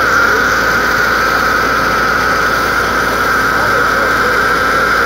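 Fire engine's pump and engine running steadily as they feed a fire hose: a loud, constant high whine over a noisy rumble.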